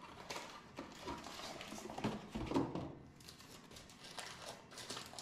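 Faint rustling, scraping and soft knocks of a cardboard gift box and its packaging being opened by hand, a little louder around two seconds in.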